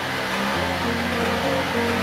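Background music: held bass and melody notes that change pitch every half second or so.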